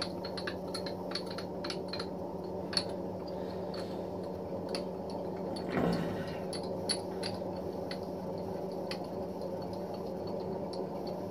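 Milling machine table being traversed under a dial test indicator: a steady low hum with scattered small sharp clicks, irregular, about one or two a second.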